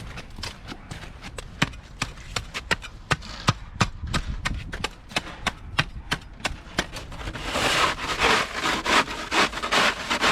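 Crunching footsteps in deep snow, irregular steps about two or three a second. From about seven and a half seconds in, a denser, continuous crunching and scraping.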